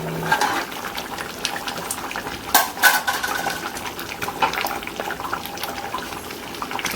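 Thick vadacurry gravy bubbling at the boil in a pan, a steady fine crackle, with a metal utensil clinking against the pan a couple of times about three seconds in.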